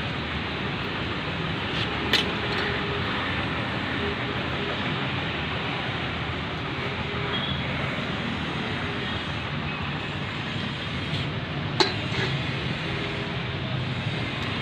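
Steady mechanical rumble and hiss, like a nearby engine or traffic, with two short sharp clicks, one about two seconds in and one about twelve seconds in.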